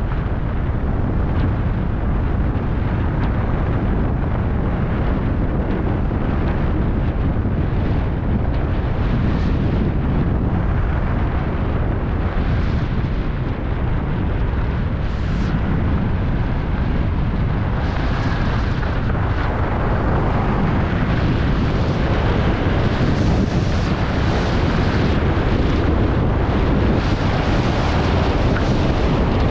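Wind rushing over a GoPro action camera's microphone during a fast ski descent, with the skis hissing and scraping over groomed snow. It grows slightly louder near the end as speed builds.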